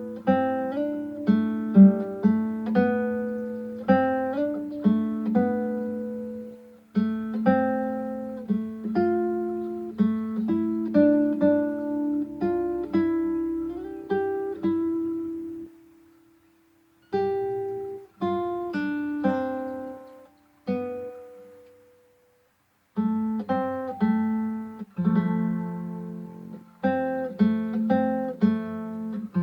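Acoustic guitar music: plucked notes and chords, each ringing and fading, with two short breaks of silence in the middle.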